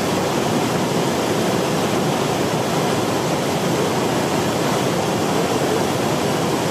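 The Rhine Falls, a large river waterfall, rushing steadily as water pours over the rocks: an even, unbroken wash of sound.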